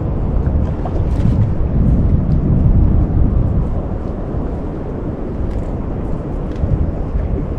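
Steady low rumble of wind and sea around a small fishing boat on open water, with a few faint ticks.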